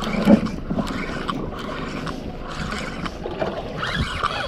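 Water lapping and sloshing against the hull of a drifting panga, with a few sharp clicks over it.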